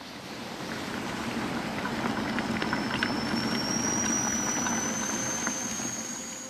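Stovetop kettle heating on a range towards the boil: a rushing hiss with scattered crackles, and from about two seconds in a high whistle that slowly rises in pitch.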